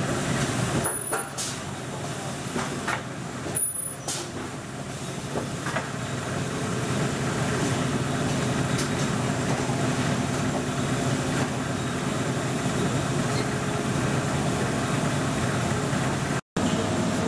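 Steady hum and whir of injection molding presses and robotic part-handling equipment running on a factory floor, with a couple of brief clicks about one and four seconds in. The sound cuts out for a moment near the end.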